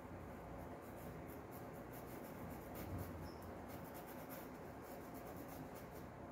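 Paintbrush stroking and dabbing acrylic paint onto a cotton cloth diaper towel: faint, quick, light scratchy strokes, several a second, over a low steady hum.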